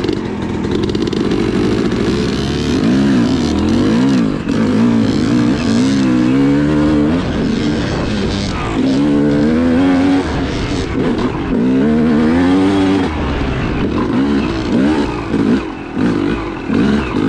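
Yamaha YZ250 two-stroke dirt bike engine being ridden hard on a trail, its pitch climbing and dropping again and again as the throttle is opened and closed through the gears. Near the end the engine note turns choppy, with short drops in level.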